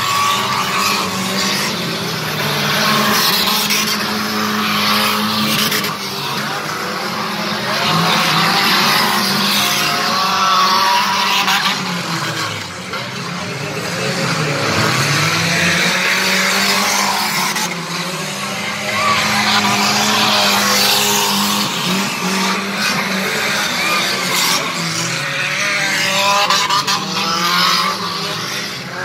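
Several stock car engines racing, their pitch rising and falling over and over as the cars accelerate and lift through the bends, with tyres sliding on the dirt.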